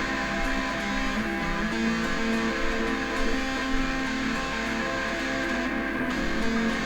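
Guitar strumming chords in an instrumental passage of a rock song.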